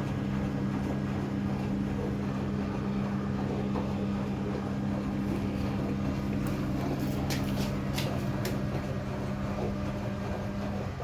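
Front-load automatic washing machine running at the start of its cycle: a steady low hum that cuts off shortly before the end, with a few short ticks about seven to eight and a half seconds in.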